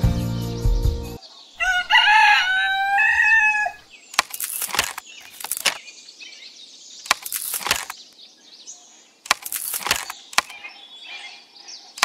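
A rooster crows once, one long call lasting about two seconds. It is followed by five or six separate short swishing sounds spaced a second or more apart.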